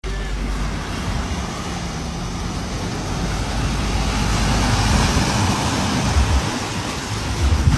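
Volkswagen van wading through deep floodwater: water surging and splashing around its front and wheels over the engine running, louder around the middle as the van comes past.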